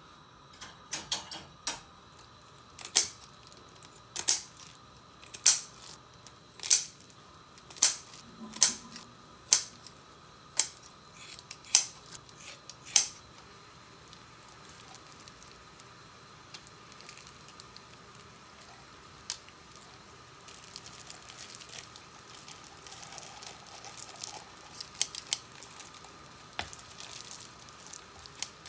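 Kitchen scissors snipping raw whole chicken, about ten sharp snips roughly a second apart in the first half. After that come quieter wet squishing and crinkling as the raw birds are handled and stuffed with glutinous rice in gloved hands.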